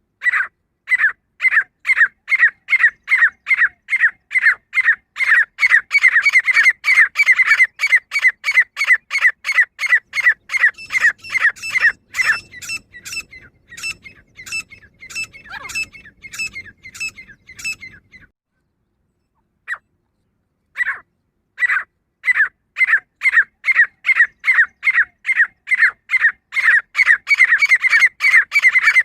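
Female grey francolin (teetar) calling: a long run of short, sharp repeated notes that quicken to about three a second, then weaken and break off for a couple of seconds before starting again and speeding up toward the end.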